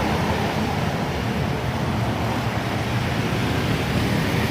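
Buses passing on the road: steady engine and tyre noise without any horn.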